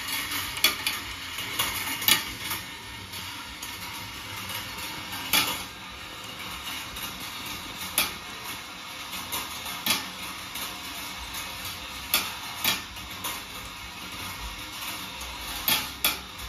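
Glass marbles rolling on the steel wire track of a rolling ball sculpture: a steady rattle, broken by sharp clacks every second or two as marbles knock together and against the metal.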